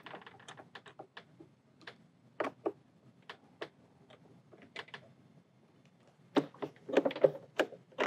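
Screwdriver tightening the mounting screws of a travel trailer's electronic keypad door lock: scattered light clicks and taps, irregular, a few a second.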